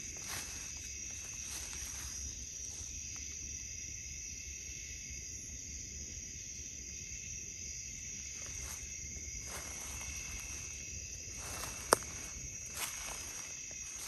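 Night insects chirring in a steady high drone, with a few soft footsteps in leaf litter and a single sharp click about twelve seconds in.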